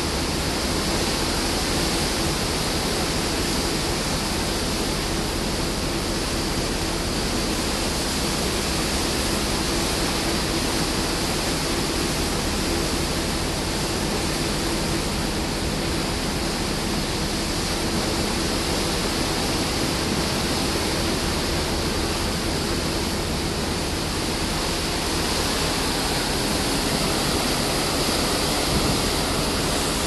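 Steady rushing of water churned in a moving ship's wake, mixed with wind, with a faint steady low hum underneath.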